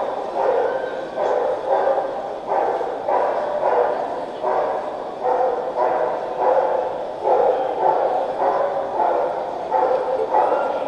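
A small dog barking over and over in a steady rhythm, about three barks every two seconds.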